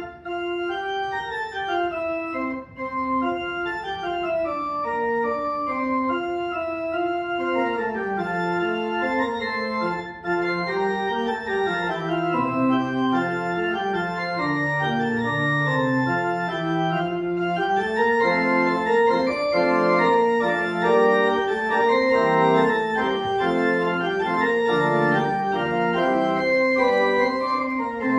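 Pipe organ playing sustained chords, with a lower bass line entering about eight seconds in and the music growing a little louder.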